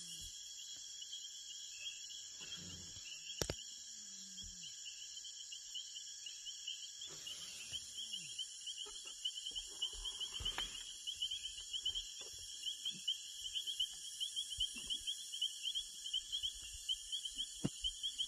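Night-time insect chorus: a steady high trill of rapid chirps that grows stronger about seven seconds in, with a single sharp click about three and a half seconds in.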